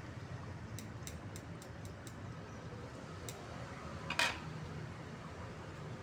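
Cooking at a small charcoal grill: a series of light clicks and ticks, then a louder clatter about four seconds in, over a steady low hum.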